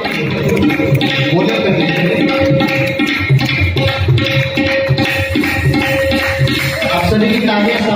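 Live devotional bhajan accompaniment with no singing: tabla playing a quick, busy rhythm over a held steady note.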